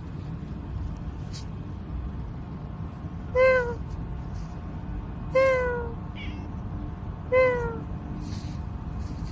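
A cat meowing three times, about two seconds apart. Each meow is short and falls slightly in pitch, over a steady low background noise.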